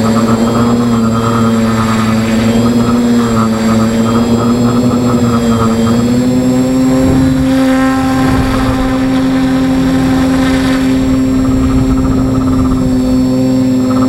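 Electric motors and propellers of a small camera drone, heard up close from the camera it carries: a loud, steady buzzing hum that wavers slightly, its pitch rising a little about six seconds in and holding.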